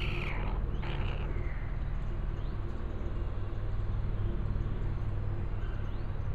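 Silkie rooster calling: a short pitched call at the very start and a second, falling call about a second in, over a steady low hum.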